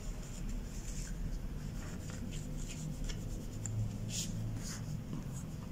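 A cloth-covered fingertip rubbing over craft-foam pieces on a cutting mat, blending colour into their outer edges. It makes faint, scratchy rubbing strokes, a little stronger about four seconds in.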